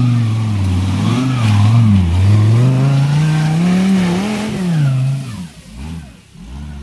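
Engine of a tube-frame off-road competition vehicle revving hard under load as it climbs a steep dirt slope. Its pitch swings up and down with the throttle, then drops away suddenly a little past five seconds in.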